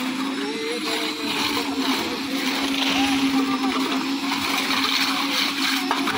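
Concrete lift mixer machine's engine running steadily with a constant hum, over a noisy jobsite background.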